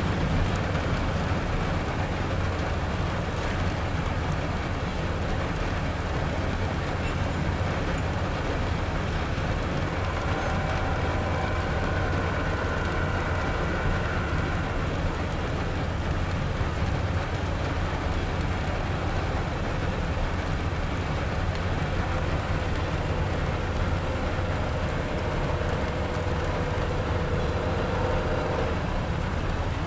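BNSF mixed freight train rolling past, a steady low rumble of the cars on the rails, with rain falling. A faint whine rises over it in the middle and again near the end.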